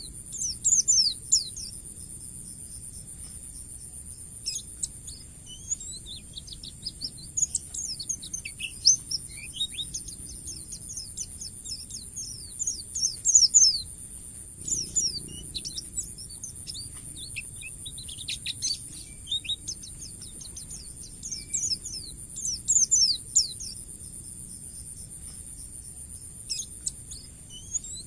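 White-eye (pleci) singing in its fast 'ngalas' style: runs of rapid, high, thin chirps and quick downward-sweeping notes in repeated bursts with short pauses between.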